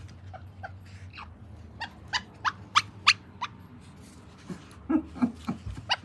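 Pembroke Welsh corgi yipping and whimpering in play: a quick run of about six short, high yips around the middle, then a few lower, shorter sounds near the end.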